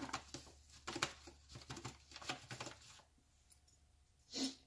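Faint rustling and crinkling of a pouch of oat fiber as a measuring spoon is dug into it for a scoop of powder, with small scrapes, for about three seconds. Then a pause, and a brief soft bump near the end.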